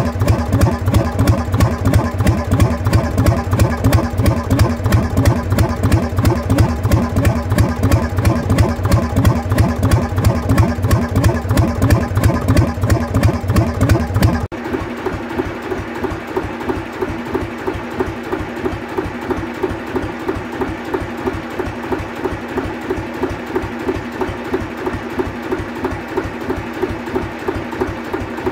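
A 1952 Gardner 2LW two-cylinder diesel engine running steadily with an even, slow beat on its test run after overhaul. It is heavy and low close up, then about halfway through it changes suddenly to a lighter, quieter beat.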